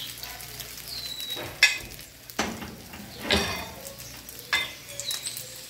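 Egg omelette mixture sizzling in a non-stick frying pan over a gas flame, while a metal spoon spreads it and scrapes against the pan and bowl: four or five short scrapes and clinks about a second apart.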